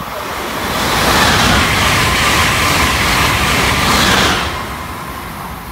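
Amtrak electric train passing through at speed: a loud rush of wheel and air noise that builds over the first second, holds for about three seconds, and fades as it goes by.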